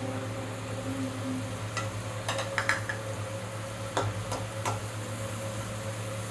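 A spoon stirring in a cooking pan, with a handful of sharp clinks and scrapes against the metal over a steady low hum and faint hiss.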